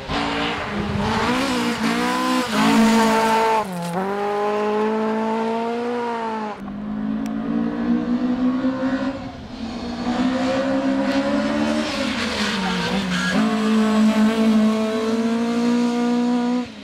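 Toyota Corolla GT AE86 rally car's 1.6-litre twin-cam four-cylinder engine worked hard at high revs. Its pitch climbs through each gear and drops at the gear changes, several times over.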